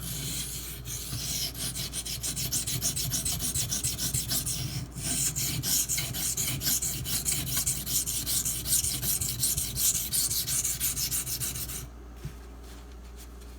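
A knife blade of SG2 powdered steel being stroked rapidly back and forth on a wet Shapton Pro whetstone, a gritty scraping. The strokes stop abruptly about a second and a half before the end.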